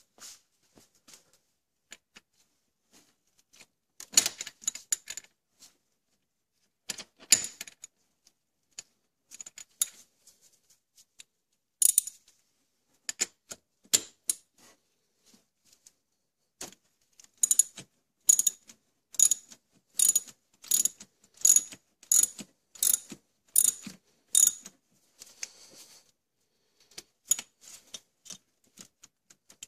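Socket ratchet clicking in short runs, then in a steady series of strokes about every three-quarters of a second through the second half, as it works the spark plug loose on a scooter engine.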